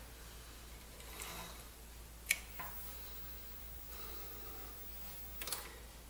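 Quiet room with a faint steady hum, broken by a few small plastic clicks as cable plugs are pushed into a Timex Sinclair 1000 computer at power-up: one sharp click a little after two seconds and a short cluster of clicks near the end.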